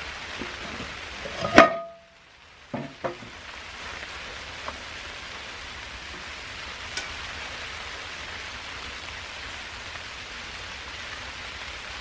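A cast-iron skillet lid clanks down onto the wood stove's steel top with a brief ring about a second and a half in, followed about a second later by two lighter cast-iron knocks, over a steady hiss.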